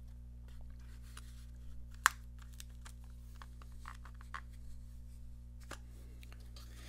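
Handling sounds of a plastic coin capsule with a proof American Silver Eagle being set into its hinged velvet presentation case and the case shut: soft taps and rubbing, one sharp click about two seconds in and another click shortly before the end. A steady low hum runs underneath.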